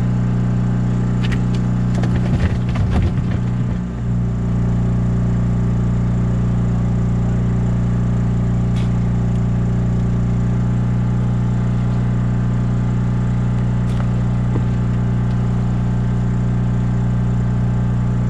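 Steady drone of a small engine-driven generator powering the boat's LED flood lights. About two to four seconds in there is a brief spell of scraping and knocking on the deck.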